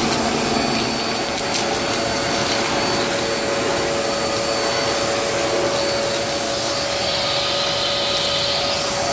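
Vacmaster vacuum running steadily through its hose and wand along a hardwood floor: a rush of air with a steady whine. About seven seconds in, the airflow takes on a higher hiss for a couple of seconds.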